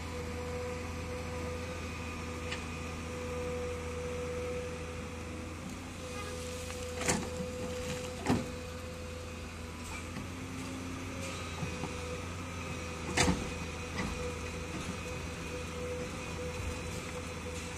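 Komatsu hydraulic crawler excavator running steadily while digging, its engine and hydraulic pump giving a constant hum with a steady whine. Three sharp knocks stand out, two close together about seven and eight seconds in and one about halfway through the second half.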